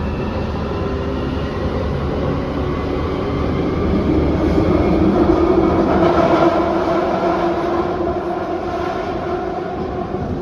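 Jubilee line 1996 Tube Stock train running in the tunnel, heard from inside the carriage: a steady rumble with a motor whine whose tones rise slightly as it picks up speed after leaving the station. It is loudest about halfway through.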